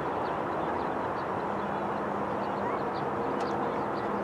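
Steady outdoor background noise at a youth soccer field, with faint distant voices and many short high chirps; a low steady hum comes in about a second in.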